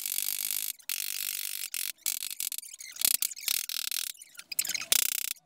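Orange mallet striking the top of a wooden box to seat its glued blind dovetail joints, a run of rapid knocks in several short stretches with brief pauses between them.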